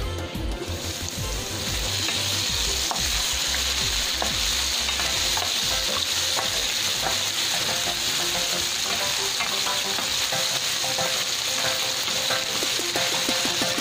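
Diced potatoes and carrots sizzling in hot olive oil in a frying pan while a wooden spatula stirs them, scraping and clicking against the pan. The sizzle sets in about a second in, once the lid is off, and then runs as a steady hiss.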